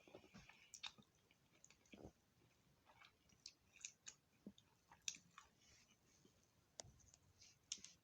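Faint close-up chewing: scattered soft mouth clicks and small crunches of someone eating chicken and fries, irregular and quiet.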